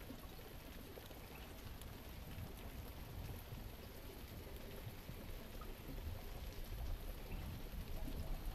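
Steady rain ambience, an even hiss with scattered faint drips and a low rumble underneath, slowly growing louder.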